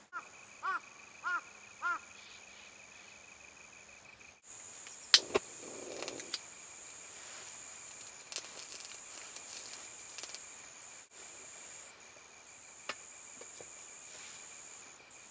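Japanese tree crickets (kantan) trilling steadily. Over the first two seconds a bird calls four times in short arched notes. From about five seconds in come a few sharp clicks and the clatter of an aluminium mess tin being handled and set on a camp stove.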